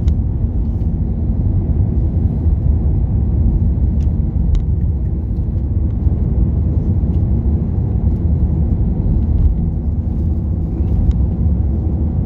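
Steady road and engine rumble of a car driving along a country lane, heard from inside the cabin, with a couple of faint ticks about four seconds in.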